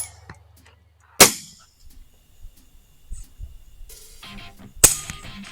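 Two rifle shots, one about a second in and one near the end, each a sharp crack followed by a short echo, with faint background music between them.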